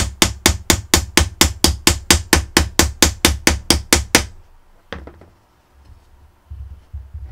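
A hammer striking a screwdriver driven into a rusted, seized hard-drive screw, in a fast, even run of sharp metallic taps, about six a second. The taps stop just over four seconds in, and two or three more follow about a second later.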